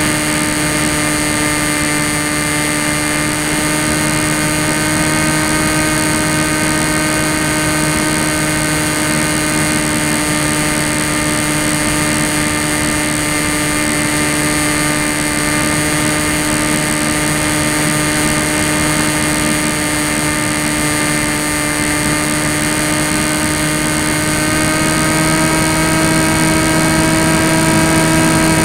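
Tek Sumo foam flying wing's electric motor and propeller whining steadily, with wind rush, heard from the plane's own onboard camera. Near the end the whine rises slightly in pitch and gets a little louder.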